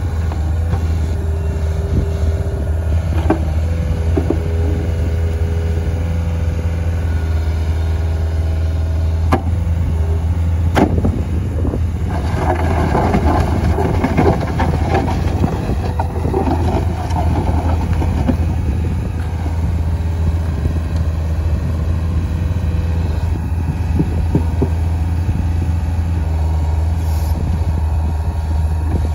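Caterpillar 289 compact track loader's diesel engine running steadily as the machine lowers its bucket and moves across gravel, with a louder stretch of rattling from the machine partway through and a few sharp clicks.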